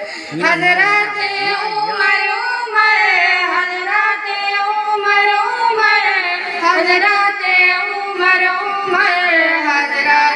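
Children's voices singing a tarana, a melodic song with long held notes that glide between pitches, with no beat under it.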